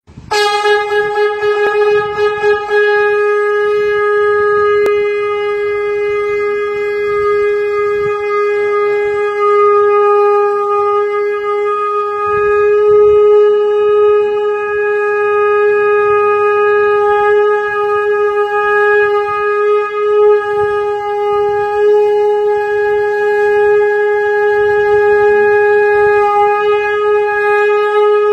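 Conch shell (shankha) blown in one steady, unbroken note that starts abruptly and is held on with no pause for breath.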